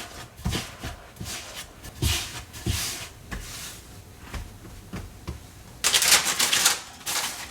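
Hands shaping a sticky, floured bread dough on a wooden board: soft pats, rubbing and scraping, with a louder stretch of dry rustling near the end.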